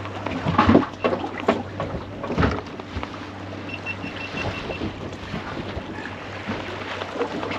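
Knocks and clatter aboard a small fishing boat over a steady low hum, with a quick run of about seven high beeps about halfway through.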